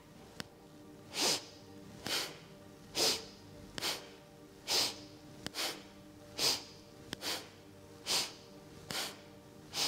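A woman breathing forcefully through the nose in a steady rhythm, one sharp puff of breath a little more often than once a second, about eleven in all. This is energetic yogic breathing paced to side-to-side spinal twists.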